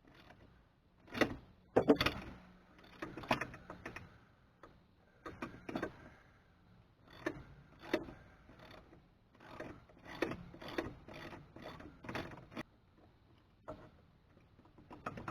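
Metal hand tools clinking and clicking in short, irregular bursts, as wrenches and sockets are handled and tried on a nut.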